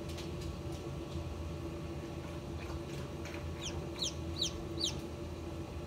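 Newly hatched chick peeping inside a Hovabator 1588 incubator: a quick run of about five short, high peeps, each falling in pitch, starting a little past halfway, over the incubator's steady hum.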